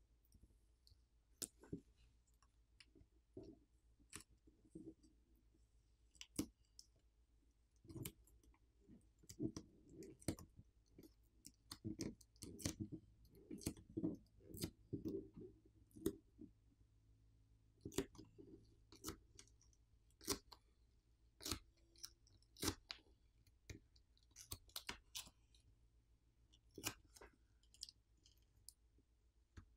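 Faint crinkling and crackling of graphite film being peeled off the back of a smartphone screen, with scattered sharp clicks and taps of tools on the parts. The crackling is densest in the middle stretch.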